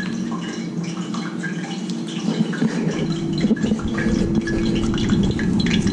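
Hot cooking oil crackling faintly in a frying pan, with many small pops, over a steady hum from a running kitchen appliance.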